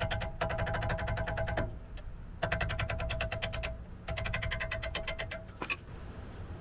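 Ratchet wrench clicking rapidly and evenly in three runs of one to two seconds each, with short gaps between them.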